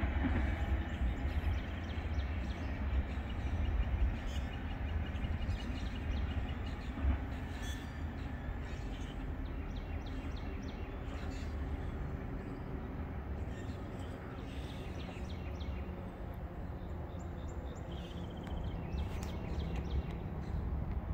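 Low rumble of a departing freight oil train receding into the distance, slowly fading.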